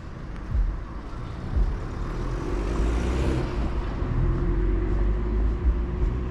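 A road vehicle passing close by, its noise swelling about three seconds in and easing off, over a steady low traffic rumble.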